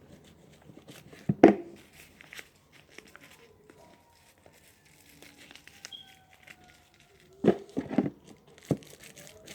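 Plastic bag and paper crinkling in short, scattered bursts as they are handled, with a louder crinkle about a second and a half in and a cluster of them near the end.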